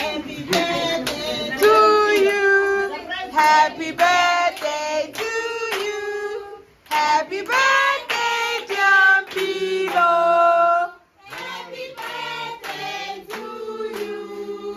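A group of women and children singing a song together, with hands clapping along.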